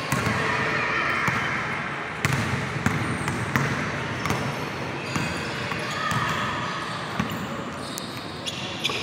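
Basketball game on an indoor court: a ball bouncing on the floor and players' feet thumping, a scattering of sharp thumps over a steady background hubbub.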